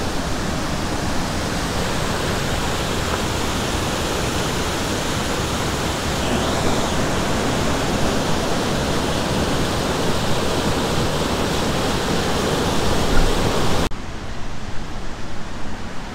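Waterfall rushing in a steady, loud roar of falling water. About fourteen seconds in it cuts off suddenly to a quieter background of running water.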